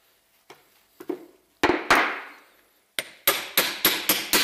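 Hammer blows on a steel angle-grinder gear-head housing held in a vise, driving out the spindle shaft. A couple of light taps come first, then two hard blows about a second and a half in, then a quick run of blows, about three a second, from about three seconds in, each ringing briefly.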